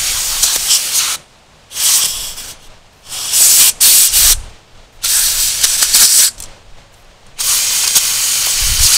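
A compressed-air blow gun with a long bent nozzle blows concrete dust out of freshly drilled screw holes in a concrete slab. It comes in about five blasts of air, each a second or two long, with the last running on past the end.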